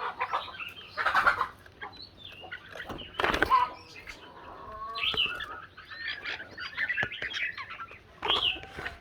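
Red-whiskered bulbuls chirping and singing in short, quick, bending phrases, with two louder rustling bursts, about a second in and again around three seconds in.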